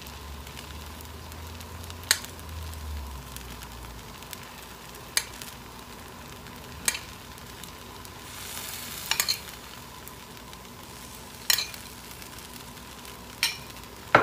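Batter frying in the oiled cups of a cast-iron bánh khọt pan, a faint steady sizzle. A metal spoon clinks sharply about half a dozen times, a couple of seconds apart, as shrimp filling is spooned into the cups, with a short louder hiss a little after the middle.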